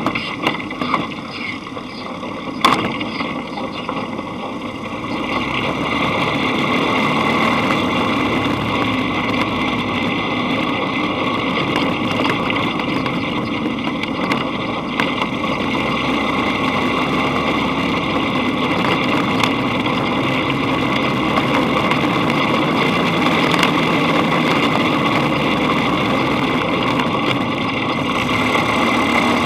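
Dune buggy engine running while it drives a bumpy dirt track, heard from on board, with a couple of sharp knocks in the first few seconds. The engine grows louder about five seconds in and then holds steady.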